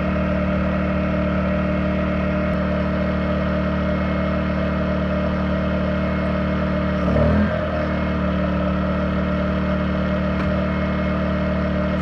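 Yamaha EF2000iS inverter generator engine running steadily. About seven seconds in, its pitch briefly dips and wavers, then recovers, as it takes a sudden load while trying to start the 13,500 BTU air conditioner.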